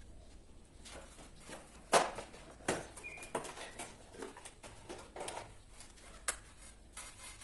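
Irregular clicks, knocks and scrapes of hands and a screwdriver working on plastic miniature circuit breakers in a distribution board, the loudest knock about two seconds in, with a brief squeak a second later.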